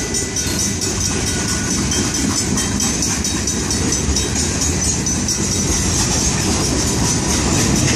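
Freight train's railcars rolling steadily through a grade crossing: continuous wheel-on-rail rumble from passing tank cars, boxcars and hoppers.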